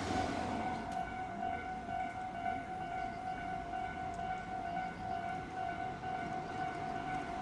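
Japanese level-crossing warning bell ringing with a steady, repeating electronic tone. The noise of a train fades out right at the start.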